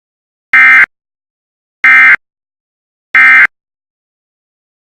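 Three short, loud EAS (SAME) end-of-message data bursts, each a fraction of a second of two-tone digital warble, about a second and a quarter apart. They signal the end of the emergency alert.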